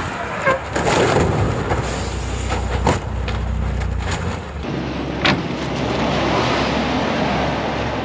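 Road vehicles on a snow-covered road: a steady low engine and traffic rumble with a few sharp knocks. About four and a half seconds in, the sound changes abruptly to another recording, a hissing noise over a lower engine hum.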